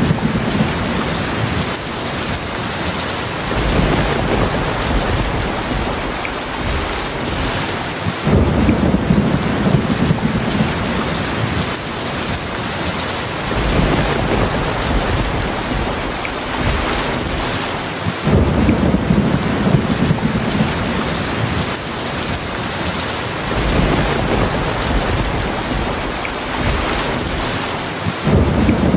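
Heavy rain falling steadily, with low rolls of thunder swelling in every five seconds or so.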